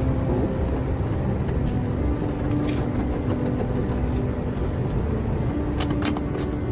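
A steady low mechanical rumble, with a few light clicks as a screwdriver drives screws into the SUV's metal door panel, about three seconds in and again near the end.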